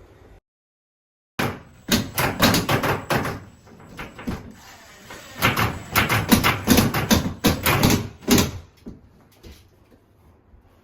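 A dense run of quick knocks, clicks and clatter, many impacts in close succession, starting after a second of dead silence and thinning out near the end.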